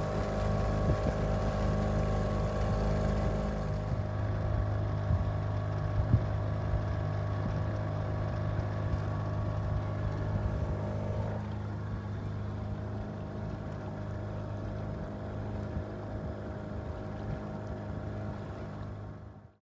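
Yamaha outboard motor running steadily, driving a small sailboat under way, with a constant low hum. The sound fades out at the very end.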